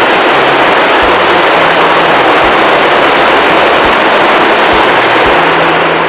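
Loud, steady rushing noise on the open deck of a ferry under way. Faint low background music plays beneath it.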